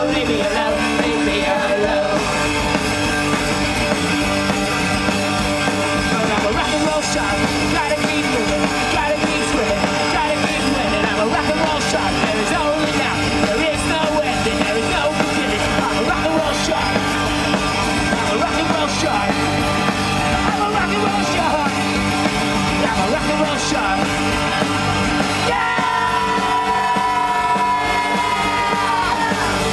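Live punk rock band playing a fast song with sung and shouted vocals. Near the end a single held note rings out, then bends down in pitch.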